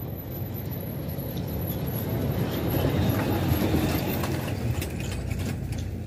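A road vehicle passing close by: a rushing engine-and-tyre noise that swells to its loudest a little past the middle and then fades away.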